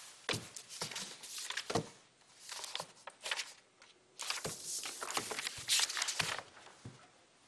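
Sheets of paper rustling and crackling as they are handled, in several short clusters of crinkly noise.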